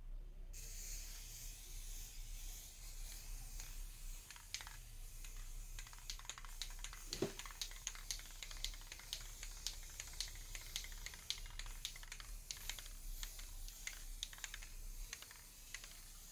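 Aerosol spray can of primer hissing faintly as it coats a motorcycle fuel tank, starting about half a second in, with many light irregular clicks throughout.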